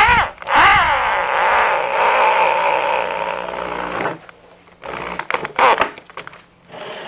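Handheld electric drill boring a screw hole into a wooden dining chair frame: the motor speeds up and slows down once, then runs steadily under load for about three seconds and stops, followed by a few short clicks and brief bursts.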